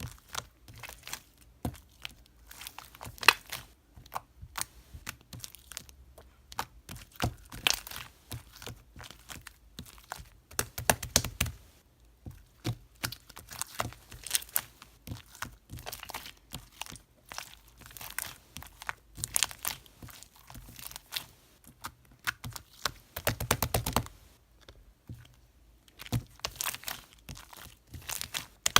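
Close-up crinkling, tearing and sharp clicking of something being handled, with two dense runs of rapid crackling about a third of the way in and again near the end.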